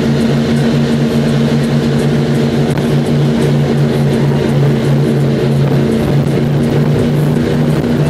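Baja 33 Outlaw powerboat's engines running at speed, a steady drone that holds its pitch, over the rush of the churning wake.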